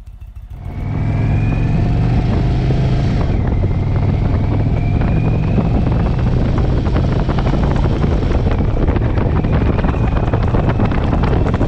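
Indian Thunderstroke 116 49-degree V-twin on a bagger running at road speed, heard from the rider's seat. The engine comes in loud about a second in, and its pitch rises three times as it pulls.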